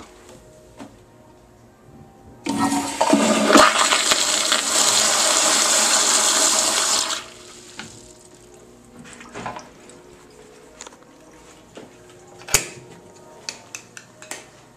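Commercial flushometer toilet flushing: a sudden loud rush of water lasting about five seconds that stops abruptly. A few faint ticks and one sharp click follow.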